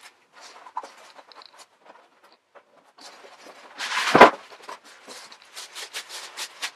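Unboxing handling noise: cardboard box and plastic wrapping rustling as an electric unicycle is pulled out of its box. A loud scrape ending in a thud about four seconds in as the wheel comes out and is set down, then crinkling of the plastic bag around it.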